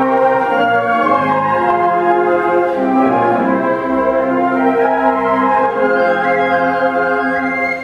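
Flute choir, flutes of several sizes down to the low flutes, playing held, organ-like chords that shift every second or so.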